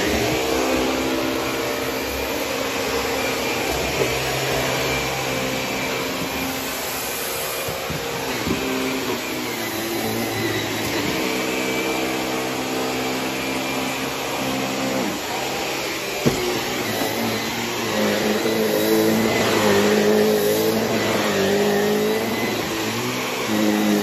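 Shark upright vacuum cleaner running while it is pushed over a rug and hardwood floor. Its motor hum steps up and down in pitch several times. There is a single sharp click about sixteen seconds in.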